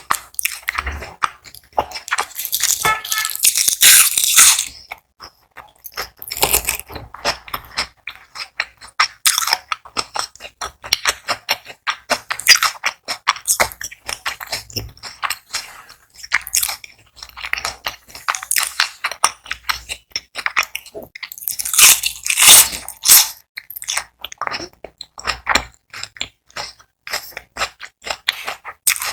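Close-miked chewing of crispy battered onion rings, with dense crunching that swells into loud bites about three seconds in and again around twenty-two seconds.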